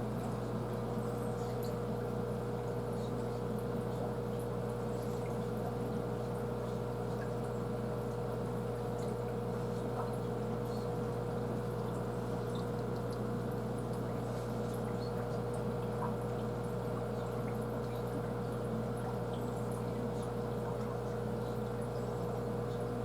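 Aquarium filter running: a steady hum with water trickling and small ticks of bubbles.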